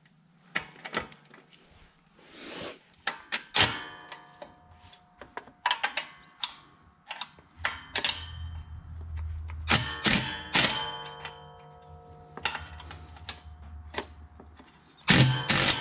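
Metal clinks and knocks of a 13 mm socket on a long extension being worked onto a bolt, some ringing briefly. A cordless impact driver starts running just before the end.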